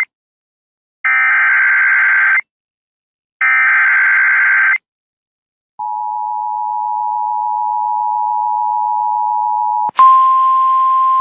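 Emergency Alert System activation for a severe thunderstorm warning: two bursts of warbling SAME header data, then the steady two-tone EAS attention signal for about four seconds. About ten seconds in it gives way to a louder single steady tone over static hiss.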